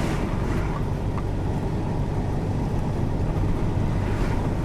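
Volkswagen Delivery Express truck's diesel engine and road noise while driving at a steady speed: an even, low rumble.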